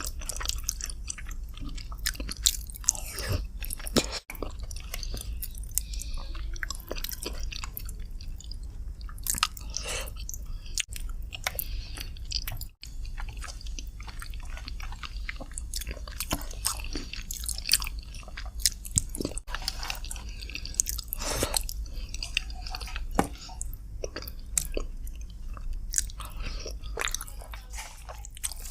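Close-miked chewing and mouth sounds of a person eating chicken curry with rice: wet smacks and small crunching bites, irregular and continuous.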